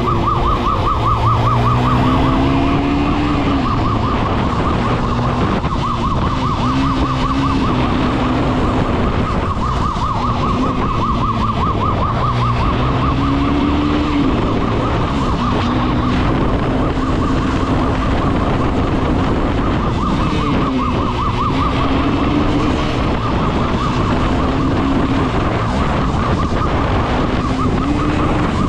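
Police motorcycle's siren on a fast, steady warble, over the bike's own engine, whose pitch rises and falls with the throttle during a high-speed run.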